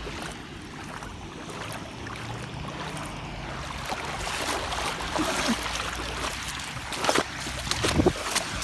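Floodwater running and splashing in a flooded street, with a few sharper splashes near the end.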